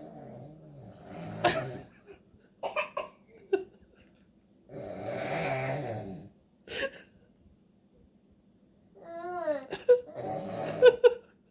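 A baby and an adult trading throaty growling noises, with short breathy bursts in between. A higher-pitched baby vocalisation that bends up and down comes near the end.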